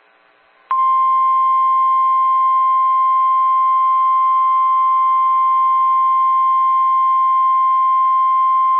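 NOAA Weather Radio 1050 Hz warning alarm tone: a single steady, loud tone that starts under a second in and holds without change. This tone alerts listeners and receivers to a warning-level broadcast, such as a tornado warning.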